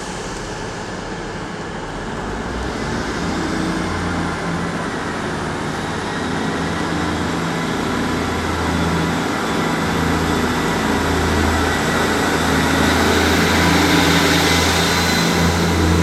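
British Rail Class 158 diesel multiple unit pulling away, its underfloor diesel engines throbbing and growing steadily louder as it accelerates. A thin high whine rises in pitch a few seconds in, then holds.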